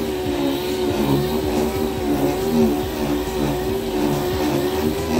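Random orbital sander running steadily against a bus's side skirt panel, sanding down body filler; its motor hum wavers slightly in pitch as the pad is pressed and moved over the panel.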